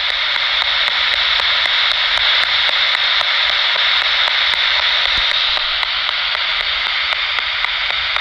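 Spirit box (SB7) sweeping through radio frequencies: loud steady static with quick regular clicks, about four a second, as it steps from station to station.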